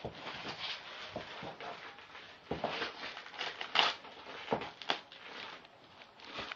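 A dog chewing and crinkling a plastic-wrapped packet held between its front paws: irregular crackling and crunching, loudest just under four seconds in.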